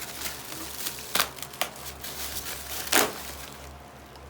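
Cardboard box and packing material being handled, rustling with a few clicks and two sharp knocks, one about a second in and one about three seconds in.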